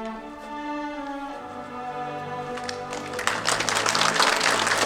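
Slow instrumental background music, with a bowed string melody over held low notes. About three seconds in, an audience starts applauding.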